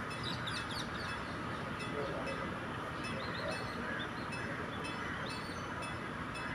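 Birds chirping a few times over the steady running noise of a Sri Lanka Railways S10 diesel multiple unit.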